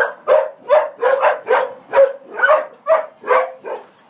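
Border collie barking repeatedly in a steady run of short barks, about two to three a second, stopping shortly before the end.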